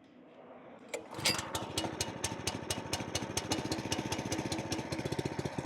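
Honda GX small engine on a Simpson ALH3425 pressure washer starting for the first time: it catches about a second in and then runs steadily with even firing pulses, set on a little choke at half throttle.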